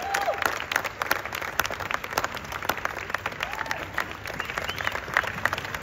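Audience applauding for a dancer at the end of her performance: dense, irregular clapping, with a couple of short cheers from the crowd near the start and about three and a half seconds in.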